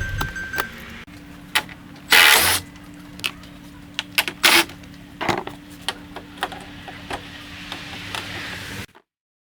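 A steady low mechanical hum with scattered clicks and knocks, and a louder noisy burst about two seconds in; the sound cuts off suddenly near the end.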